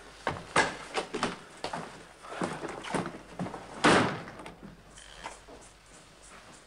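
A rapid, irregular series of knocks and thuds, like objects being banged and knocked about, with the loudest thud about four seconds in.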